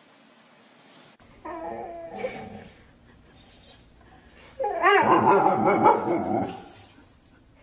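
A dog barking and whining: a short bout of bending calls about a second and a half in, then a louder, longer bout from about four and a half seconds.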